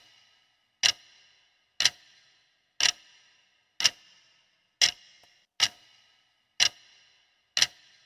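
Countdown-timer sound effect: a clock ticking about once a second, each tick a short sharp click with a brief faint ring.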